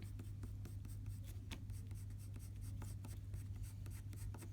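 Coloured pencil scratching on paper in rapid short strokes, hatching in fur stripes, over a steady low hum.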